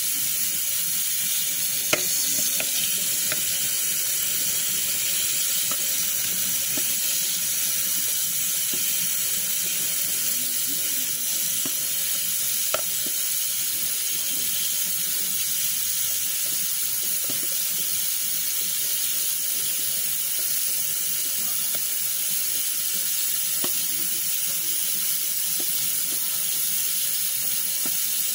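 Tap water running steadily in a sink, the stream pouring onto a paint brush's bristles and splashing off as a hand works the paint out. Two short clicks stand out, about 2 seconds in and again near 13 seconds.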